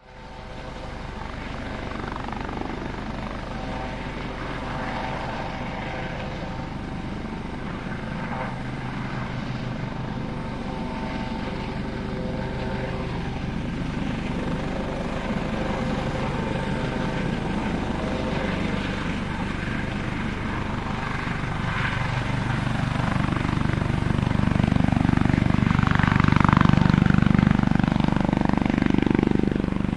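Helicopter coming in to land: fast rotor-blade chop under a steady whine of several tones, getting steadily louder, loudest and heaviest in the last few seconds.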